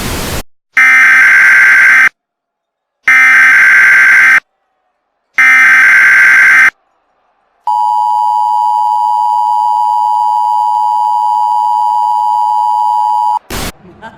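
Emergency Alert System activation: three loud, identical SAME header data bursts of about a second each, a second apart, then the steady two-tone EAS attention signal held for about six seconds. Brief blips of noise come at the start and near the end.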